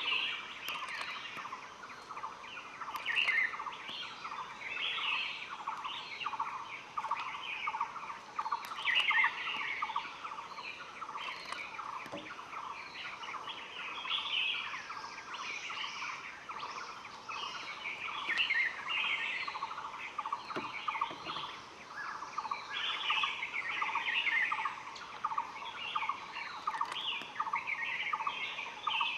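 Wild forest birds chirping and calling, several at once, with bursts of higher chirping phrases every second or two over a steady, rapidly repeating lower note.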